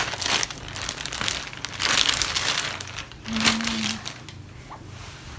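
Plastic bag wrapping around a laptop crinkling as it is handled, in irregular bursts for about three seconds before dying down.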